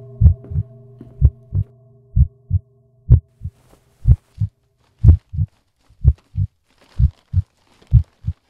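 Heartbeat sound effect: paired low thumps, lub-dub, about once a second. A low droning tone fades away over the first few seconds.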